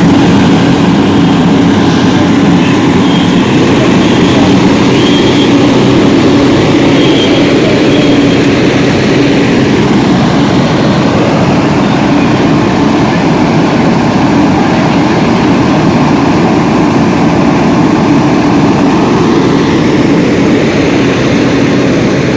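A large engine running steadily and loudly close by, an unbroken mechanical drone with a constant low hum and no change in speed.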